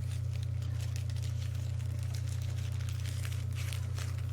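A steady low hum with faint, scattered crinkling as the doujinshi books and their packaging are handled.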